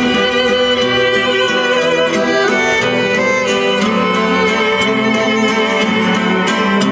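Music with a prominent violin line over a steady beat.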